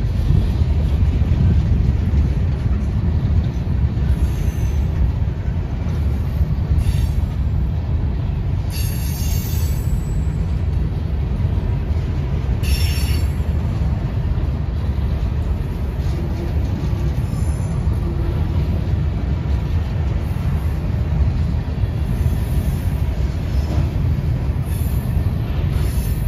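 Freight train rolling past with a steady low rumble of cars on the rails, broken by brief high wheel squeals about nine and thirteen seconds in.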